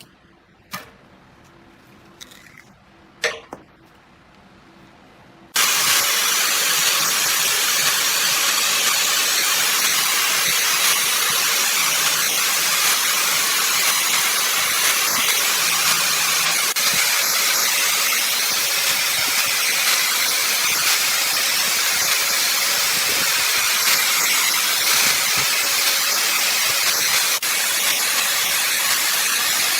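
A few light clicks, then about five and a half seconds in a loud, steady hissing rush starts abruptly and runs on evenly: wood being worked on a running wood lathe.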